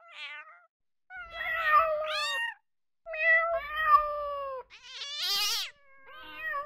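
A domestic cat meowing about five times in a row, separate calls that each bend in pitch; the fourth, just past halfway, is higher-pitched than the others.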